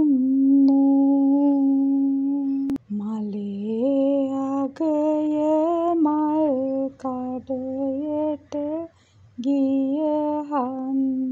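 A solo voice singing a slow Sinhala lament, holding the last word of one line for nearly three seconds, then moving through the next line in drawn-out, gently wavering notes.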